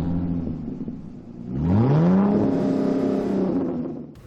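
Car engine revving: a steady low note, then a sharp climb in pitch about one and a half seconds in that holds high before dying away near the end.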